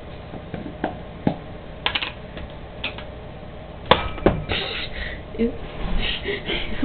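Handling noises from a peanut butter jar and spoon: a series of separate sharp clicks and knocks, the loudest about four seconds in.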